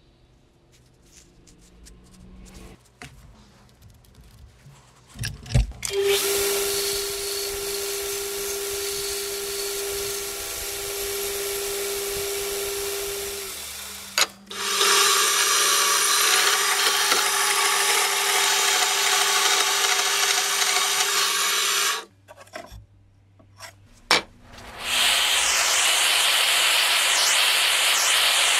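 A power sanding tool working steel. It runs in spells, a steady motor whine under a rough abrasive noise, with short breaks about 14 and 22 seconds in. The last spell, from about 25 seconds, is brighter with a wavering hiss. The first few seconds hold only a few small knocks and one sharp knock.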